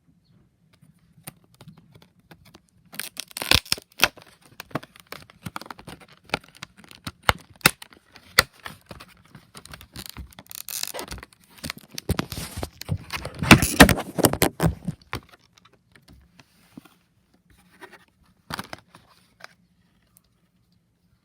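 Packaging being handled and opened by hand: a busy run of clicks, scrapes, tearing and crinkling of cardboard and plastic, loudest between about three and fifteen seconds in, then dying down to a few scattered clicks.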